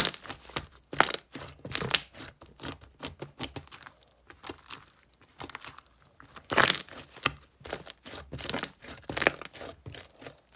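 Slime being squished and stretched by hand, giving a run of irregular crackles and pops with a few louder snaps.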